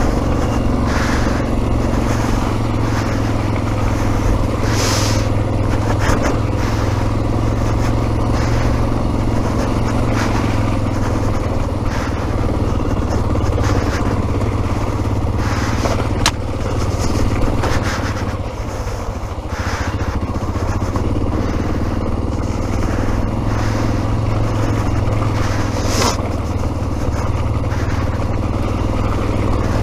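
Yamaha XT600E single-cylinder four-stroke engine running steadily as the motorcycle climbs a snow-covered track, easing off briefly past the middle, with a few sharp knocks.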